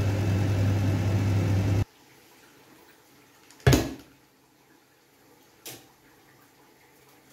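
A steady low hum and rushing noise at the stove while polenta cooks, which cuts off abruptly. Then a sharp, loud knock with a short ring as a saucepan is turned out onto a plate to release the polenta, and a lighter knock about two seconds later.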